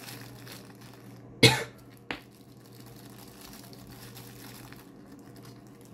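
A person coughs once, loudly, about a second and a half in, with a short second cough or click about half a second later. Faint crinkling of a small plastic bag being handled runs under it.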